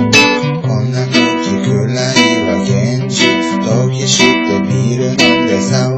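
Music: strummed acoustic guitar playing a steady rhythm.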